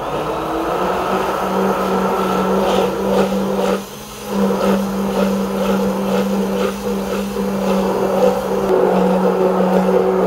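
Braun hand-held immersion blender running steadily in a steel pot, emulsifying a sea urchin and egg-yolk base into a mayonnaise-style sauce as oil is added. Its motor dips briefly about four seconds in.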